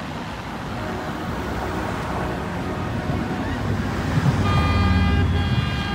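Steady rush of many motorboat engines and wakes. About four and a half seconds in a horn blows a long, steady blast, while a deep engine rumble swells beneath it.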